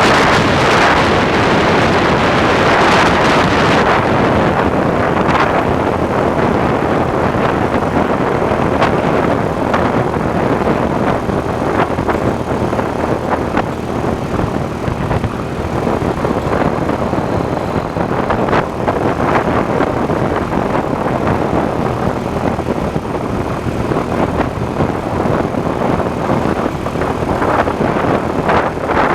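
IZh Planeta 5 sidecar motorcycle under way, its single-cylinder two-stroke engine running steadily under heavy wind noise on the microphone. The wind is strongest in the first few seconds, then eases a little.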